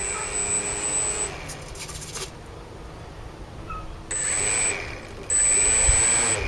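Brushless electric motor of a HobbyKing Yak 54 RC plane spinning its propeller in throttle bursts: a high-pitched whine with propeller noise. It runs at the start and cuts off after about a second, then comes back in two short bursts about four and five seconds in, the last one the loudest and longest.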